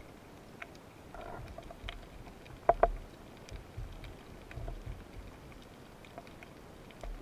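Underwater ambience heard through a camera housing: faint scattered clicks and crackle, with a brief sharper cluster of clicks and knocks a little under three seconds in and a few softer knocks a couple of seconds later.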